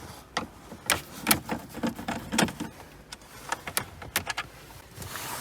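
Scattered clicks, knocks and rattles of plastic dashboard trim panels and self-tapping screws being handled while the dash is taken apart.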